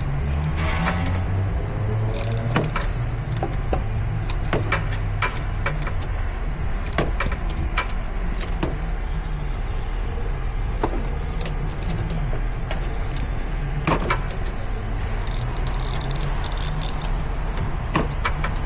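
Scattered metallic clicks and clinks of hand tools working on a hydraulic cylinder, over a steady low hum.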